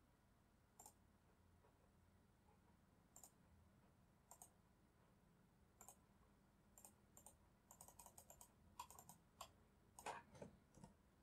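Faint computer mouse clicks: single clicks a second or more apart, then a quicker run of clicks about two-thirds of the way in, and a louder soft knock near the end.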